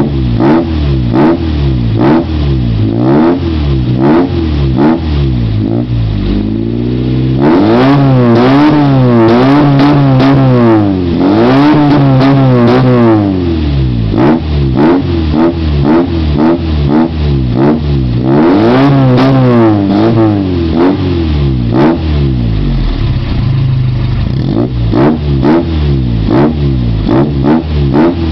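Chevrolet Chevette 1.6 petrol four-cylinder engine revved through a dual-outlet exhaust. It runs in quick repeated throttle blips, each rising and falling. Twice, about a quarter and two-thirds of the way through, a longer rev is held higher for a few seconds.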